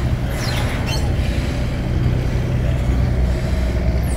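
A river passenger boat's engine running with a steady low rumble, heard from on board, over an even hiss.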